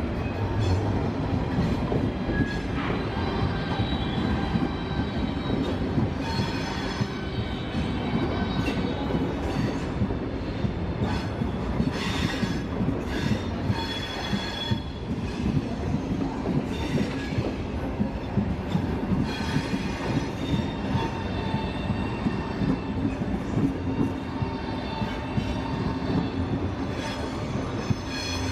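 A train rolling over the station tracks, with a steady rumble and high wheel squeals that come and go throughout.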